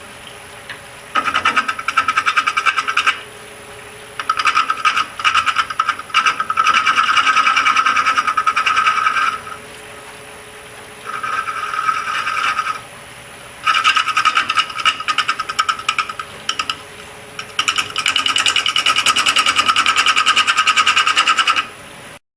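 A turning tool cutting a spinning black walnut coaster blank on a wood lathe, in about five passes of rapid chattering clicks with short pauses between them. A faint steady high whine runs underneath. The sound cuts off suddenly just before the end.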